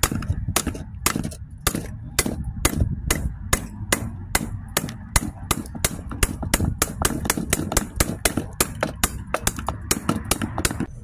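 A metal rod striking a freshly cast lead bar in quick, sharp knocks, about four a second, cracking and chipping the glassy slag crust off the bar.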